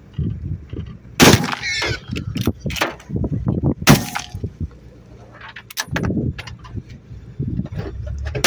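Two sharp gunshots about two and a half seconds apart, the first about a second in, with a brief high wavering sound just after the first. Thumps and rustling run between and after them.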